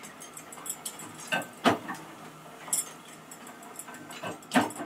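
Mechanical power press striking steel wrench parts: two heavy metallic strokes about three seconds apart, with lighter clinks and knocks of steel pieces between them.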